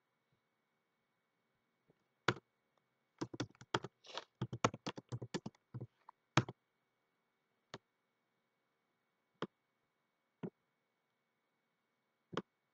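Typing on a computer keyboard: a quick run of keystrokes from about three to six and a half seconds in, with single clicks before and after.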